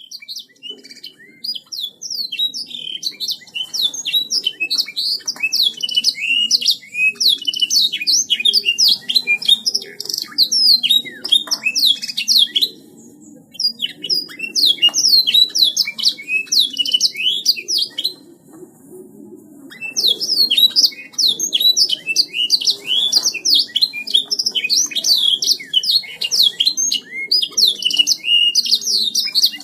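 Domestic canary singing in long, rapid, continuous runs of trills and chirps, pausing briefly twice, over a faint low steady rumble.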